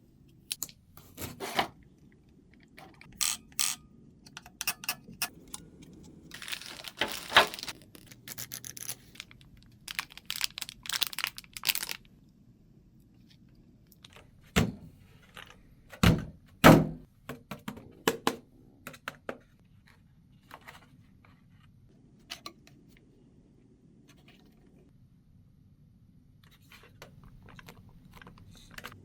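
Unboxing handling sounds: packaging rustling and tearing in quick, irregular bursts, then three heavy thunks a little past the middle as the box or the RC car is set down, followed by a few light clicks and scrapes.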